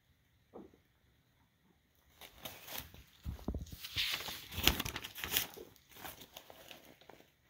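Paper rustling and crinkling as a page of a lined legal pad is lifted and flipped over. It starts about two seconds in, is loudest in the middle with quick sharp crackles, and fades out near the end.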